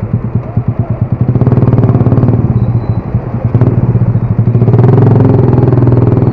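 Motorcycle engine running while riding, a steady hum with rapid firing pulses that grows louder about a second and a half in as the throttle opens.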